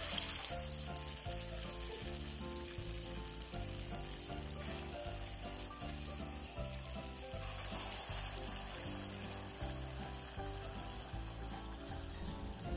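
Banana spring rolls (turon) deep-frying in hot oil with caramelized sugar in a wok: a louder burst of sizzle as the first roll goes into the oil, then steady sizzling and bubbling.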